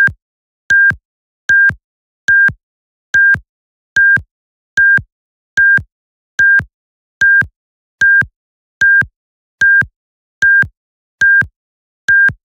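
Seismograph event-detection alarm beeping, which signals that a possible earthquake has been detected. It is a short, high, single-tone beep repeated evenly about every 0.8 seconds, about sixteen times.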